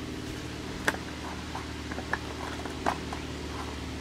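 A few light clicks and taps from handling the small plastic hull and hatch of an RC jet boat, the loudest about a second in and another near three seconds, over a steady low hum.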